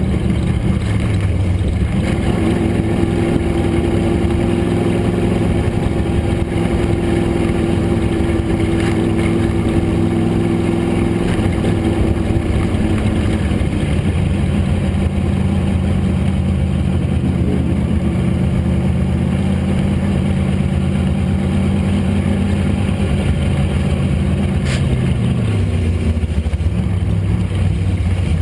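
Race car engine running hard at steady high revs during a qualifying lap, the pitch holding for long stretches and shifting now and then, then falling off near the end.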